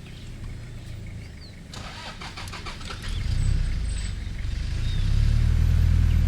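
Safari vehicle's engine running with a low, steady rumble, growing louder about three seconds in and again near the end as it pulls away.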